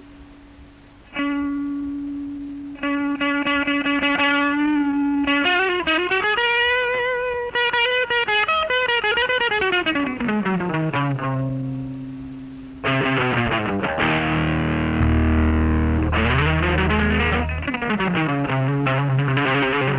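Instrumental rock music: a distorted electric guitar holds long notes, bending them slowly up and down with vibrato. About thirteen seconds in, a fuller, denser chord with low bass notes comes in.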